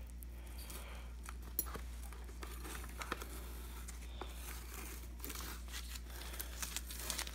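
Tape being peeled off the rim of a plastic helmet shell and crumpled by hand: soft crinkling and tearing with scattered small crackles and ticks.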